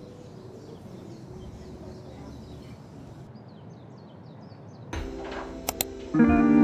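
Steady outdoor background noise with a run of faint, short bird chirps from about three seconds in. Near the end come two sharp clicks, then loud guitar music starts.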